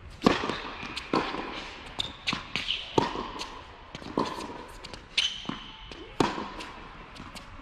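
Tennis serve and rally on an indoor hard court: a loud racquet strike on the serve about a third of a second in, then a string of ball hits and bounces about a second apart, echoing around the hall. Two brief high squeaks from sneakers on the court come midway.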